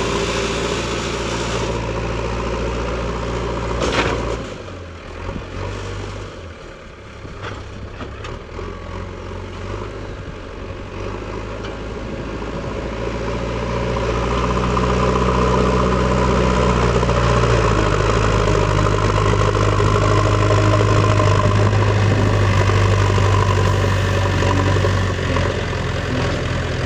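JCB backhoe loader's diesel engine running steadily, with a sharp knock about four seconds in. The engine then drops back quieter for several seconds before rising again and running loud and steady under load for the rest of the time.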